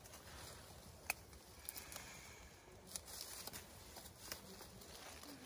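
Faint rustling of leafy fireweed stems being handled and picked by hand, with a few small scattered clicks.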